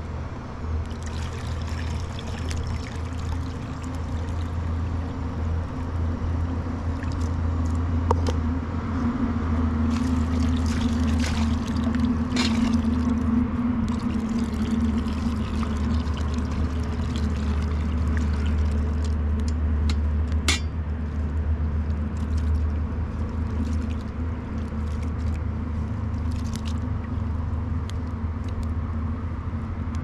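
Water poured from a kettle into a metal bowl of grain while a hand swishes and stirs the grain to wash it, with a few sharp knocks. A steady low rumble runs underneath and is the loudest sound.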